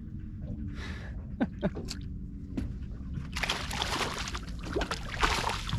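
Water splashing and sloshing at the boat's side, starting about three seconds in, as a hooked flathead is brought up and netted; a few light knocks come before it.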